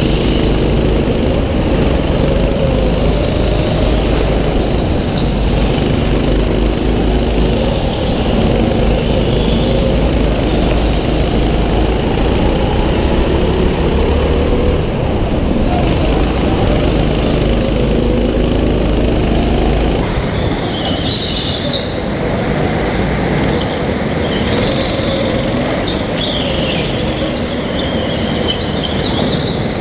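Onboard sound of a racing kart's small engine running hard, its pitch rising and falling as it accelerates and lifts through the corners, with tyres squealing on the smooth indoor track surface. The sound changes character about twenty seconds in, where the footage cuts to another kart's onboard camera, and the tyre squeals come more often after that.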